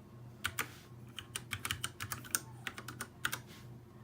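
Ducky One 2 Mini mechanical keyboard with Cherry MX Brown switches being typed on: a run of irregular keystrokes starting about half a second in and stopping shortly before the end.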